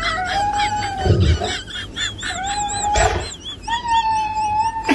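An animal vocalizing: three long, drawn-out calls with a wavering pitch, each lasting about a second or more.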